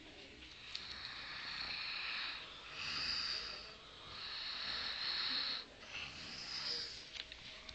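A pet snoring: about four hissing snores, each a second or so long, with short pauses between breaths.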